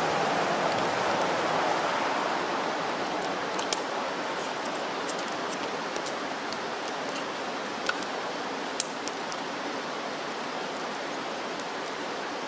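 Steady rushing outdoor background noise, easing slightly over time, with a few faint sharp clicks.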